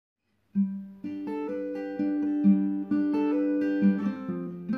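Background music: a melody of plucked string notes, starting about half a second in.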